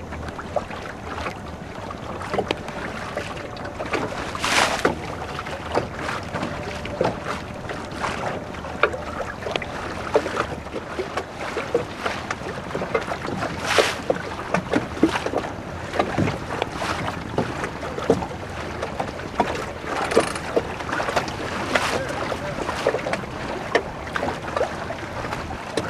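Water slapping and splashing irregularly against a small sailboat's hull, with wind buffeting the microphone; two louder splashes, about four and a half seconds in and again around fourteen seconds.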